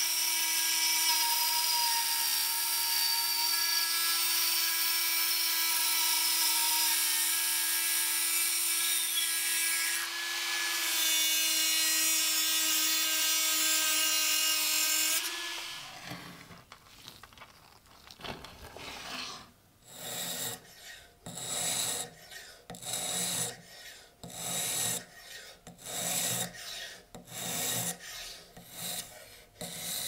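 A rotary tool's abrasive cut-off wheel runs with a steady high whine as it cuts through a thin metal pin. About halfway through, the whine cuts off. It is followed by slow, even rubbing strokes, roughly one a second.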